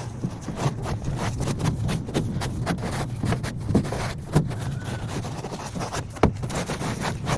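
Irregular scraping and scuffing with a few sharper knocks, over a low steady hum: a jon boat's hull being wiped down by hand before epoxy resin is rolled on.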